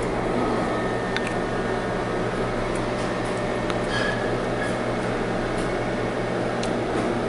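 Steady mechanical hum and whir of a room's air handling, with a few faint light clicks.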